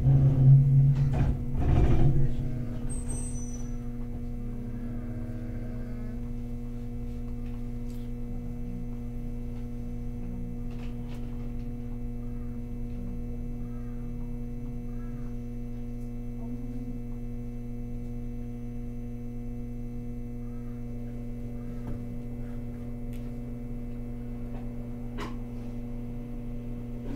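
Steady electrical hum with a low drone inside a Hakodate City Tram Type 3000 car. Two loud knocks come in the first two seconds.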